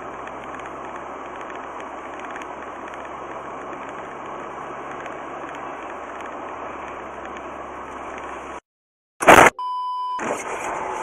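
Steady road and tyre noise inside a moving car. About nine seconds in comes one sharp, loud crash as the car runs into the back of the car ahead, followed by a short electronic beep.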